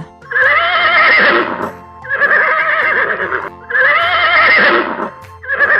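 Horse whinnying three times in a row, each call about a second and a half long with a quavering, wavering pitch; a fourth whinny begins near the end.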